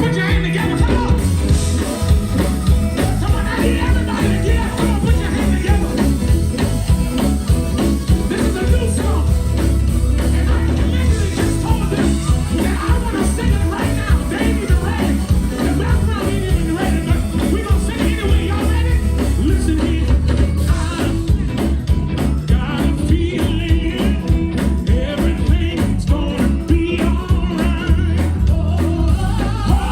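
Live praise music: a band playing with singing over a heavy, steady bass.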